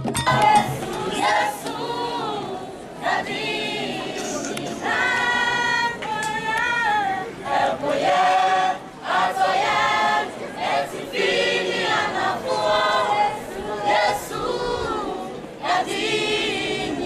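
Choir of secondary-school students singing unaccompanied, in phrases with short breaks between them.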